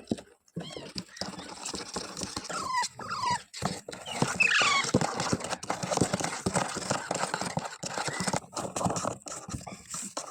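Parrot calls: a few short squawks and chirps that slide in pitch, between about two and five seconds in, over a busy run of clicks and rustling.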